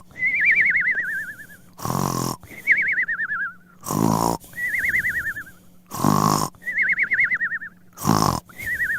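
Cartoon snoring sound effect looping about every two seconds: a rough snort on the in-breath, then a wavering whistle that slides down in pitch on the out-breath.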